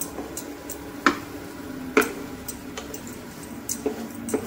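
Spatula knocking and scraping in a nonstick frying pan as green peas in masala are stirred and fried, with two sharper knocks about one and two seconds in and lighter taps between. A faint steady hum runs underneath.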